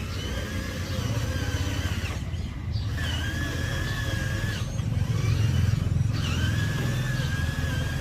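Tractor running with a steady low engine rumble, over which a high whine comes and goes in three stretches, breaking off briefly about two and five seconds in.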